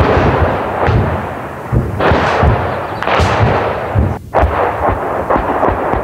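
Dense artillery shelling: shells exploding in quick succession, nearly two blasts a second, each sharp crack trailing into a rolling rumble.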